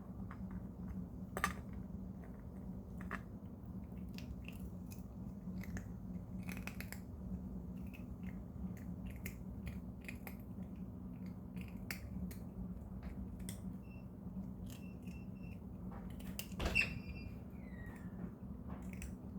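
A cat crunching hard dental-treat snacks: irregular small crisp crunches and clicks, over a steady low hum.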